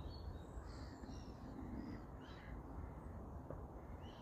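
Faint birds calling: scattered short, high chirps and call notes over a steady low rumble.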